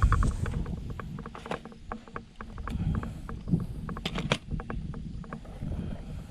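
Small homemade corrugated-plastic boat being paddled: irregular water splashes and knocks of the paddle against the hull over a rumbling background.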